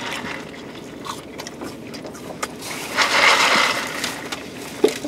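A drink sucked through a straw from a paper fountain cup, with a hissing slurp about three seconds in. Light rustling and small clicks from handling the cup come through the rest of the time.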